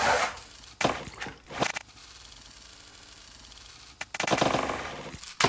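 A die-cast toy monster truck released down a plastic drop playset: a few sharp plastic clacks. About four seconds in comes a splashy burst as it lands in a tub of mud slime, then another sharp knock near the end.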